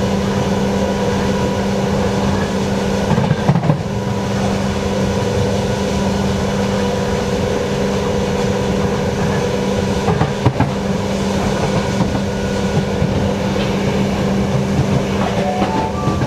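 Interior of an ÖBB class 4020 electric multiple unit running at speed: a steady hum over wheel-on-rail noise, with short knocks from the track about three and a half and ten and a half seconds in.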